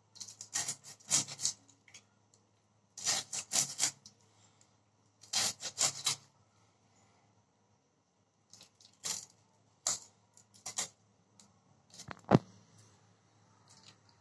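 Magur catfish being cut into pieces on a boti, the fish pushed against the upright curved blade in several short bursts of cutting strokes with quiet pauses between, and one sharp knock near the end.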